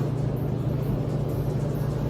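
Steady low hum and rumble of laundromat washers and dryers running.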